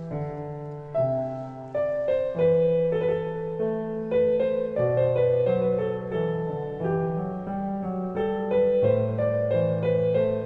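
Background piano music: a gentle melody of single notes over lower bass notes.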